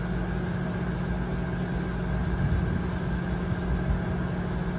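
A steady, low mechanical hum, unchanging throughout.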